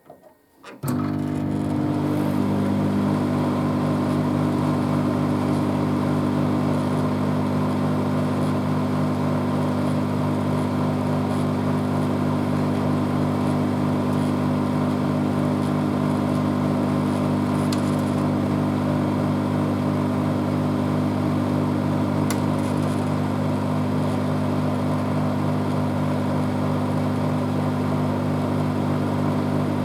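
700 W microwave oven switching on about a second in and then running with a steady, even hum.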